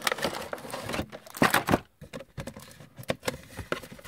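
Cardboard toy box and its clear plastic blister tray being handled and slid apart: scraping and crinkling with small knocks and clicks. The loudest scrape comes about a second and a half in, followed by a brief pause.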